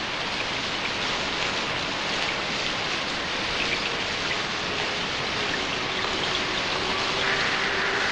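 Heavy rain falling in a steady, dense hiss, with faint held tones coming in over the last few seconds.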